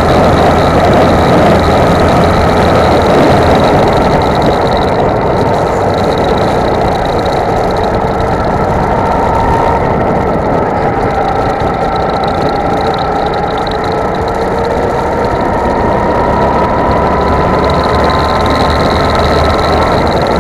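Go-kart engine running at speed, heard from on board, its pitch slowly rising and falling through the lap, over a steady dense rush of noise.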